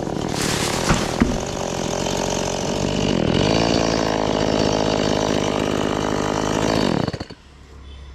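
Two-stroke chainsaw running at high revs, dipping briefly about three seconds in and climbing again, then dropping away sharply about seven seconds in. Two sharp knocks about a second in.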